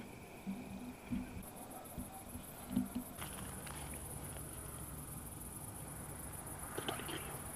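Crickets chirping in the evening, a steady high pulsing trill that grows louder about three seconds in, with a few faint rustles near the end.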